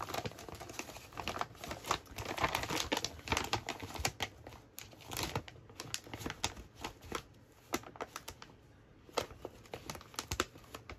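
Clear plastic bag crinkling and papers rustling as a hand rummages through a bag of paper scraps, in irregular crackles that ease off for a moment about eight seconds in, then pick up again.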